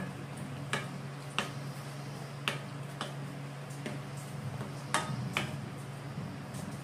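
Wooden spoon stirring squid and vegetables in coconut milk in an aluminium wok, knocking against the pan about six times, over a steady low hum.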